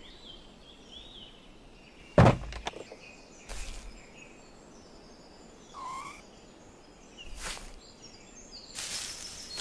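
A single heavy thump about two seconds in, then two fainter knocks, with small birds chirping now and then. Near the end there is a stretch of rustling noise.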